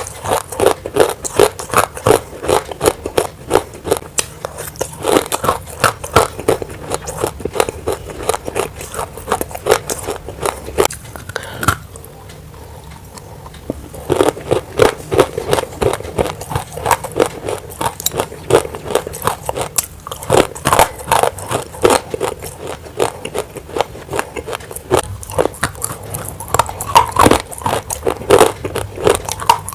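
Close-miked crunching of dry, roasted grey clay being bitten and chewed: a dense run of sharp cracks and crumbles, pausing briefly about twelve seconds in before resuming.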